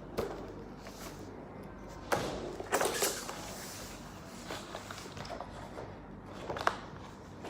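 Handling of the packaging around a YouTube play button: scattered knocks and clicks, with a louder rustle about two to three seconds in.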